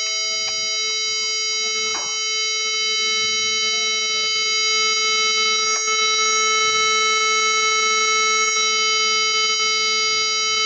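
Fire alarm horn sounding a continuous, steady, buzzy tone rich in overtones, with no pulsing. A second, higher tone drops out about half a second in, and a few faint clicks are heard.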